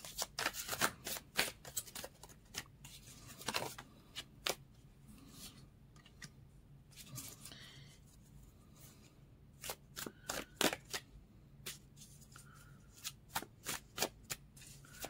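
A deck of tarot cards being shuffled by hand: a quick run of clicks and slaps, a pause of a few seconds midway, then more shuffling.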